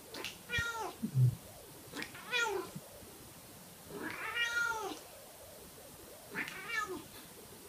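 Black cat meowing four times, each meow rising and falling in pitch, the third one the longest. A low thump about a second in is the loudest sound.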